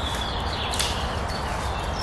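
Footsteps on the forest floor, a few sharp snaps among them, with a bird's short high chirps over a steady rustling haze.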